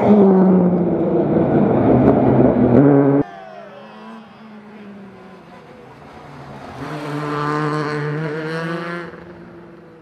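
Fiat Punto Super 1600 rally car's engine at full throttle, loud and close for about three seconds, then cut off abruptly. After that the engine is heard from farther away, swelling as it comes closer between about seven and nine seconds and then fading.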